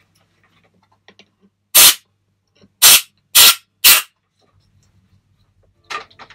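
Compressed-air blow gun on a coiled air line giving four short, loud blasts of air, blowing dirt out of freshly cleaned bolt threads in a cylinder head. There is one blast, then about a second later three more in quick succession, about half a second apart.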